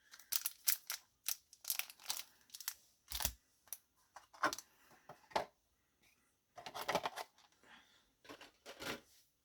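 Yu-Gi-Oh trading cards and their foil pack wrappers being handled: a string of short paper-and-foil rustles and flicks, with a longer crinkle about seven seconds in.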